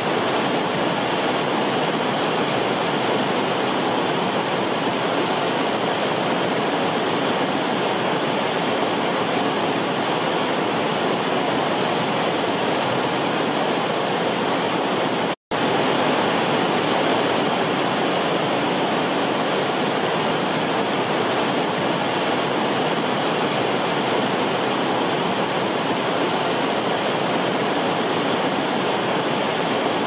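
Waterfall: a steady, even rush of falling water. The sound cuts out completely for a split second about halfway through.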